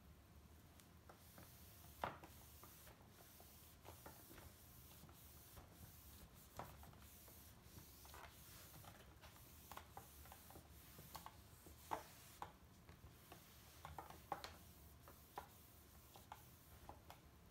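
Faint rubbing of a microfiber cloth wiped over an LG LCD monitor screen: irregular short rubs and light taps, the sharpest about 2 seconds and 12 seconds in.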